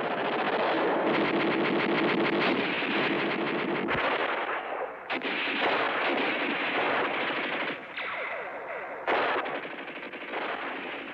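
Long bursts of rapid automatic gunfire, machine-gun fire rattling shot after shot, with sudden loud new bursts about five and nine seconds in.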